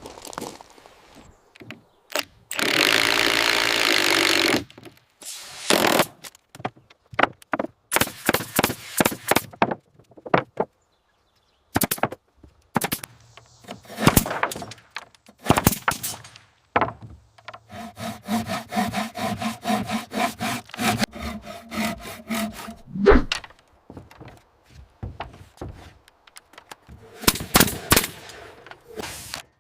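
Woodworking sounds: a power tool runs for about two seconds near the start, followed by repeated sawing strokes and knocks on wood, then a second motor run of about five seconds in the middle that ends in a sharp knock.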